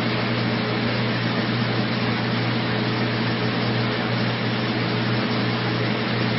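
Steady, unchanging hiss over a low hum, like a ventilation fan or air handler running.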